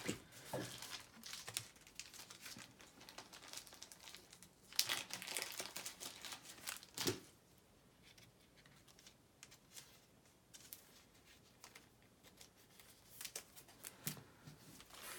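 Thin plastic crinkling and rustling in short bouts as trading cards are handled and slid in and out of plastic card sleeves, louder in the first few seconds and again near the end, faint in between.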